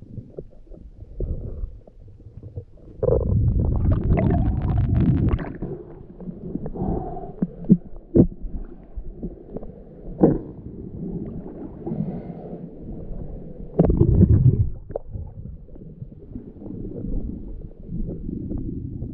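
A freediver moving through the water, heard muffled through an action camera's underwater housing: a low rumble with scattered sharp knocks and two louder rushes of water, a long one about three seconds in and a shorter one about fourteen seconds in.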